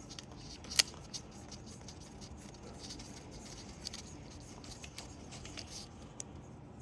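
Faint, irregular small clicks and scratches of hand tools and metal parts being handled during engine work, with one sharper click a little under a second in.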